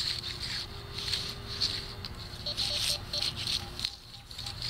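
Garrett AT Pro metal detector coil swishing back and forth through grass and dry leaves. From about halfway in come short detector beeps at two alternating pitches as the coil passes over a target, which reads 82-83.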